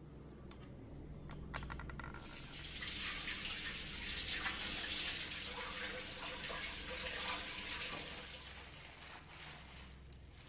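Kitchen tap running into a stainless steel sink as hands are rinsed under it. The water starts about two seconds in, after a few light clicks, and stops near eight seconds.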